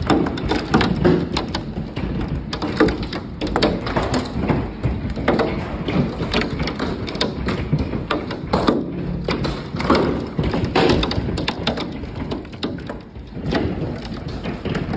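Heavy hail pelting a wooden deck and the lake: a steady hiss of falling hail with dense, irregular knocks and thuds of stones striking the boards.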